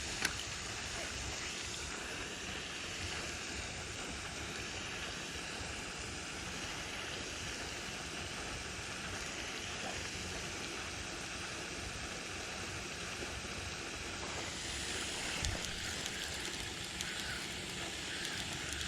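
Steady outdoor rushing noise with a flickering low rumble, with one sharp click just after the start.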